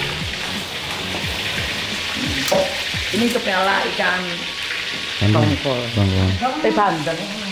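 Food frying in hot oil in a pan, a steady sizzle with some stirring. Voices talk over it in the second half.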